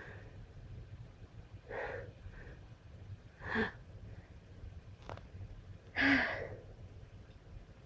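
A person sneezing: three short, strong bursts about two seconds apart, the last the loudest.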